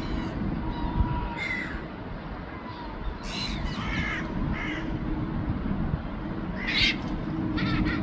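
Gulls giving short, harsh calls, about six in all in loose clusters, over a steady low rumble.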